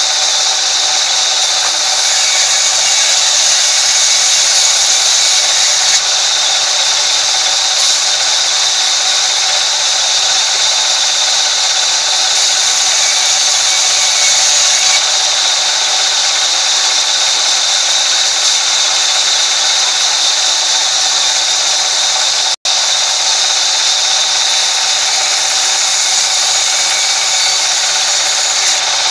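Sawmill band saw running steadily and cutting lengthwise through timber planks fed past its blade: a continuous, loud, high-pitched saw noise. It drops out for an instant about three-quarters of the way through.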